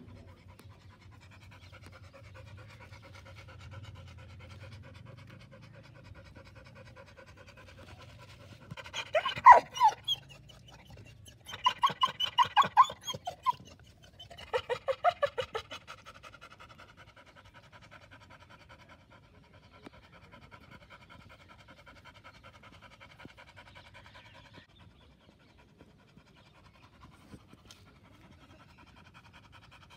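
Dogs panting, with three loud bursts of vocalizing between about nine and sixteen seconds in.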